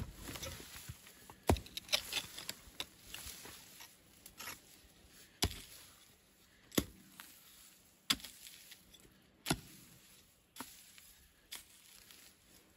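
A long-handled hoe striking and dragging through loose earth: a series of sharp hits, about one every second or so in the second half, with scraping and rustling of soil between them in the first few seconds.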